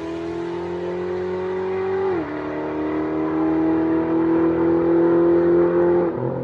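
LS V8 engine in a Dodge Charger accelerating under load, its pitch climbing slowly in each gear. It drops suddenly on upshifts about two seconds in and again near the end.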